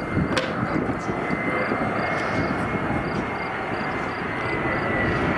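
Airbus A319 jet engines on final approach: a steady, high whine over a broad rumble, growing a little louder as the plane nears. A sharp click sounds about half a second in.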